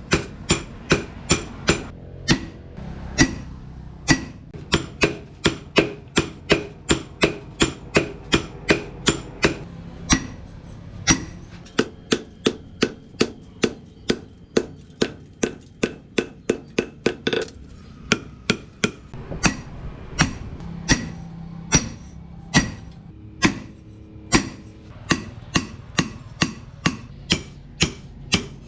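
Blacksmith's hand hammer striking steel on an anvil in a steady rhythm, about two ringing blows a second, with a few short pauses.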